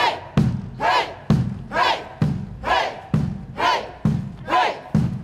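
A drum beaten steadily about once a second, each beat answered by a short shouted cry from a group of voices that rises and falls in pitch, in a repeating chant-like call and beat.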